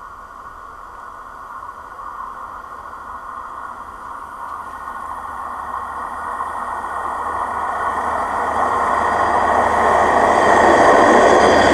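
A rail vehicle approaching along the tracks, growing steadily louder throughout, with a high, steady metallic squeal of steel wheels on the rails over a rumble.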